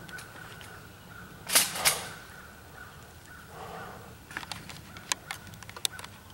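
A crow cawing twice in quick succession, then a run of small clicks and rustles.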